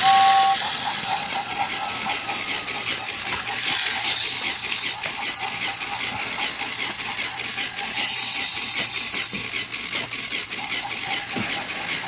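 A small motor running steadily with a fine, rapid clicking throughout. A short two-note whistle sounds right at the start.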